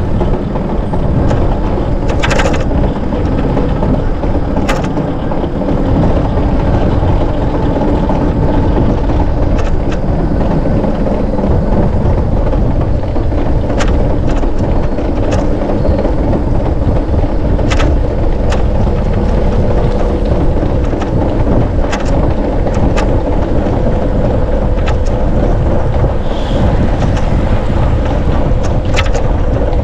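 Steady low rumble of wind on the microphone and road noise from a bicycle in motion, with scattered sharp clicks throughout.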